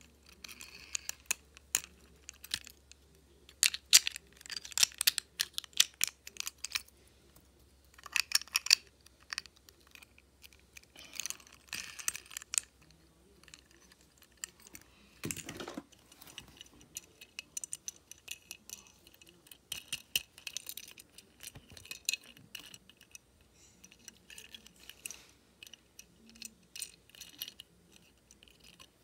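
Small toy cars being handled in the fingers: irregular clusters of quick clicks and light clattering every few seconds as the cars are turned over and their wheels and bodies knock together.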